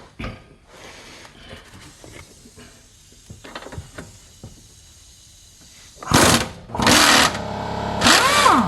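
Impact wrench firing in three short loud bursts near the end, after several seconds of faint clicks and knocks from handling tools and parts.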